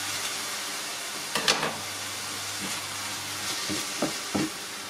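Diced mushrooms and vegan bacon frying in a pan with a steady sizzle. A few light clicks and knocks come through, about a second and a half in and again near the end, from scissors snipping and a wooden spoon stirring.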